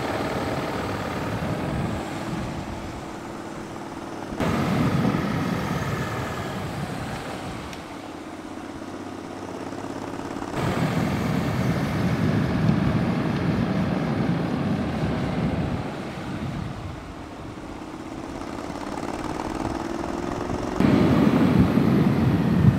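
Wind rushing over the microphone of a camera moving fast down a mountain road behind cyclists, with a steady hum underneath. The sound jumps sharply in level and tone about 4, 10 and 21 seconds in, where the shots change.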